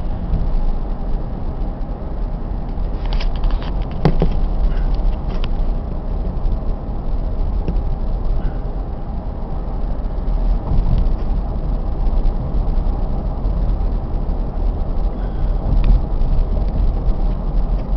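Cabin road and engine noise of a V6 Toyota Sienna minivan cruising steadily at 35 mph: an even low rumble, with a few light clicks about three to five seconds in.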